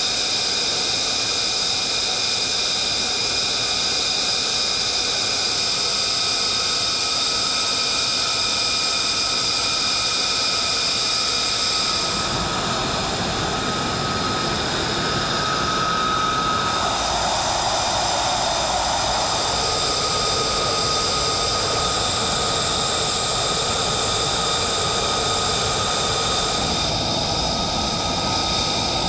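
Lockheed Martin F-35A Lightning II's Pratt & Whitney F135 turbofan running at ground idle: a steady jet whine with several high tones held over a rushing hiss. The mix shifts slightly about twelve seconds in and again near the end.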